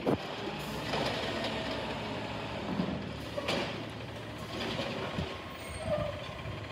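Automated side-loader garbage truck working: its engine runs with a steady hum while the hydraulic arm tips a wheeled trash cart into the hopper and sets it back down. There is a sharp bang right at the start, then several more clanks of the cart and arm over the following seconds.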